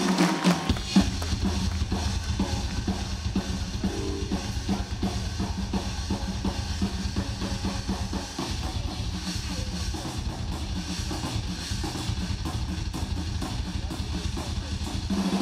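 Rock drum solo on a ddrum drum kit: a fast, steady run of bass drum strokes under snare and cymbal hits.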